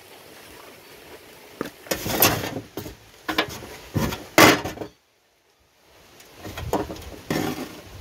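Short knocks and crunches of a dry coconut shell being broken apart by hand, loudest about two and four seconds in, with a sudden silent gap of about a second shortly after.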